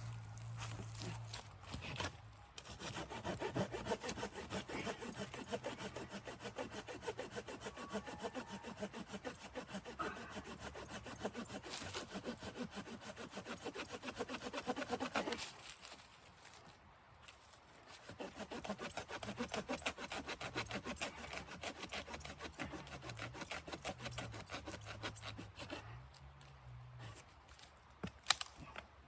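A hand saw cutting wood with rapid back-and-forth strokes, in two long spells with a short pause between them.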